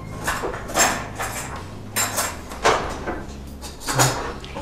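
A small spoon stirring dry seasoned breadcrumbs and grated Parmesan in a small glass bowl, scraping and clinking against the glass in a run of short strokes at an uneven pace.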